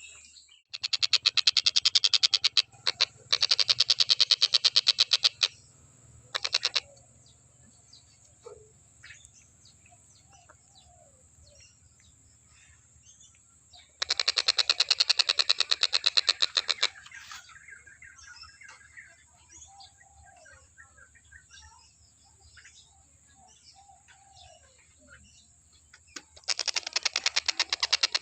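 Tengkek buto kingfisher giving loud, rapid rattling calls in long bouts of fast repeated notes: one of about five seconds near the start, a brief one soon after, another about halfway through and one near the end. Faint chirps from other birds fill the gaps.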